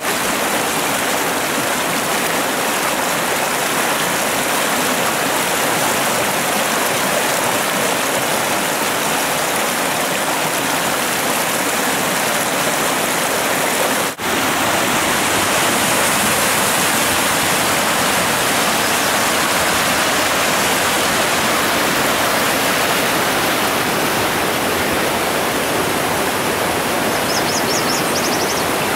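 Whitewater rapids rushing steadily over rocks and river ledges, dipping for an instant about halfway through.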